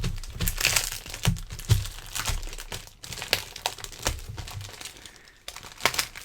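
Parcel packing being pulled apart by hand: irregular crinkling, rustling and tearing as layers of wrapping around a stack of comics are opened, with a short pause about three seconds in.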